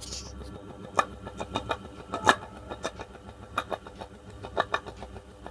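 Ceiling fan running with a low hum and irregular sharp clicks, a couple a second. The bearings are sound; the noise comes from a worn, cut bearing seat on the shaft, which lets the bearing sit out of balance.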